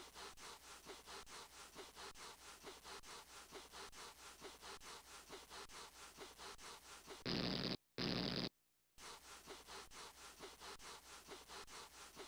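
Cartoon sound effect of feet scuffing rhythmically on carpet, about four strokes a second, building up static electricity. About seven seconds in come two loud electric zaps in quick succession, a static shock discharging, and then the scuffing starts again.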